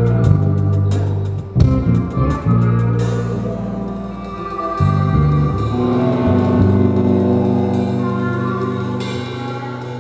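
A rock band playing live: guitar and bass notes with drum kit hits for about three seconds, then held chords with cymbal wash ringing on and slowly dying away.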